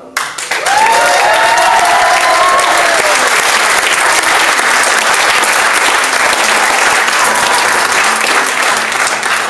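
A roomful of guests bursts into loud, sustained applause. A few cheering voices rise over the clapping in the first few seconds.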